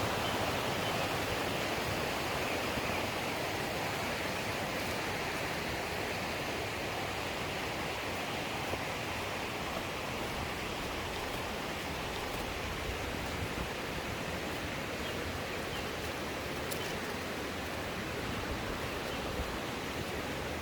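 Mountain stream running over rocks: a steady, even rush of water, with a few faint clicks.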